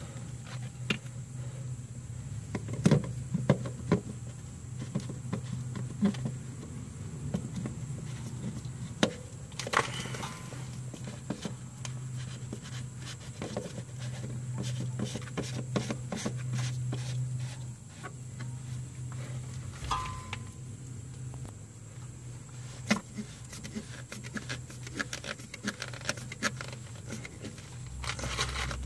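Scattered clicks, knocks and scrapes of a plastic diesel fuel filter housing being threaded back onto its filter head and snugged down, over a steady low hum.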